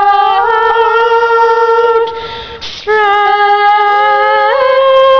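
Young women singing slow, long-held notes together without accompaniment, at times in two-part harmony. The singing breaks off for under a second about two seconds in, then resumes, with one voice sliding up to a higher note near the end.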